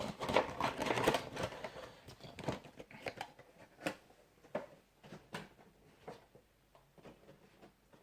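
Cardboard box and packaging being handled: a dense run of crinkling and clicks for about the first two seconds, then scattered light clicks and taps that thin out.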